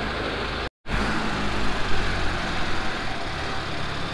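Diesel engine of an Escorts Hydra mobile crane running steadily with a low hum. A short gap of total silence cuts into it under a second in.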